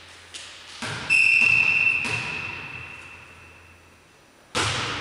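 Volleyball referee's whistle blown once, a steady high blast about a second in that fades into the hall's echo, after a couple of soft thuds. Near the end comes a loud sharp smack of a ball being struck, ringing around the sports hall.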